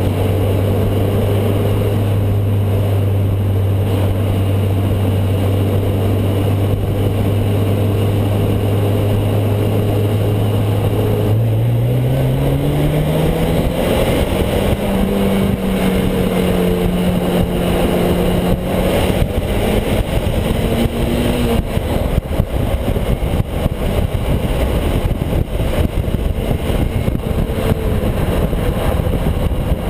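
Mazda MX-5 2.0's four-cylinder exhaust, recorded at the tailpipe while driving: a steady low drone at cruise, then a little over a third of the way in the engine note rises as the car accelerates and levels off at a higher pitch. In the second half the exhaust note fades under a rushing wind and road noise.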